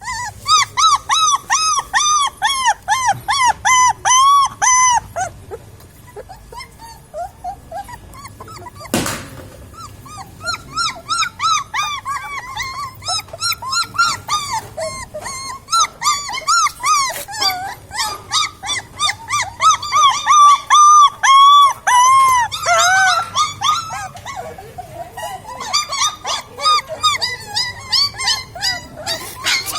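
Puppies whimpering and yelping, many short high-pitched cries in quick runs of several a second, with pauses between runs. A single sharp knock about nine seconds in.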